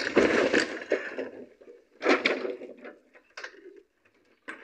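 A lean-to roof of wooden beams and metal sheets crashing down as it is pulled off with ropes: a loud crash of timber and sheet metal at the start that dies away over about a second, then a few more clatters and knocks as pieces settle.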